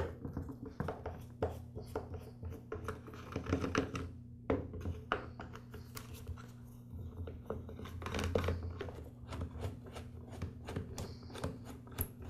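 Screwdriver backing screws out of a plastic string-trimmer motor housing: irregular small clicks, ticks and short scrapes of the bit and of plastic being handled.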